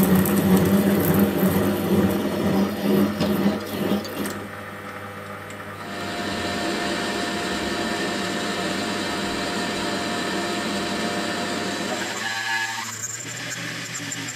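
Small metal lathe running and cutting a metal workpiece, its motor and spindle humming under the noise of the cut. The sound drops about four seconds in, then settles into a steadier cut with a thin constant whine as the boring bar works inside the bore.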